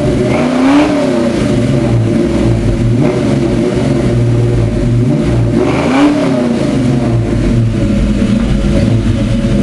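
Ford 5.0 V8 in a Fox-body Mustang running loud, revved up and back down twice during a burnout attempt.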